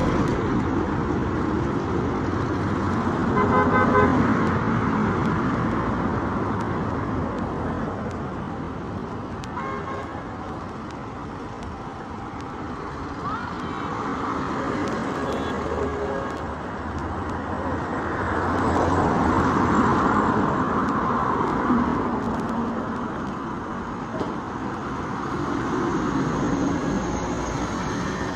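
Street traffic: vehicles passing, their engine and tyre noise rising and falling. A car horn toots briefly about four seconds in.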